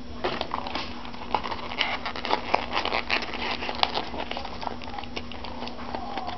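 Hands handling cardboard and plastic card packaging: a run of irregular crinkles, taps and clicks that thins out near the end, over a faint steady hum.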